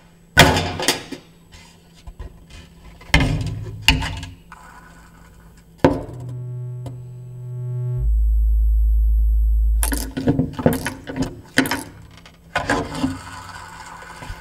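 A metal toolbox and hand tools clanking and clicking on a workbench, in several sharp knocks and then a quick run of clicks near the end. A steady electronic tone sounds for about two seconds in the middle, then a loud deep bass drone for about two seconds.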